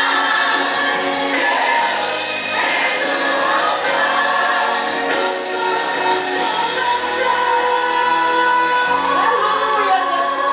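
A song with several voices singing together over instrumental backing.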